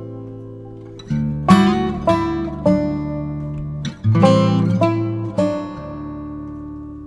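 Background music: acoustic guitar picking and strumming a slow, repeating phrase of chords, each one ringing out and fading.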